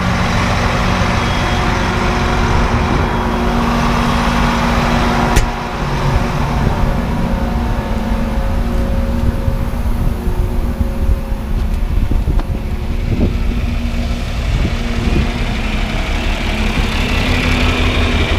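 Steady engine and machinery running at a grain bin site, with a constant hum and one sharp knock about five seconds in.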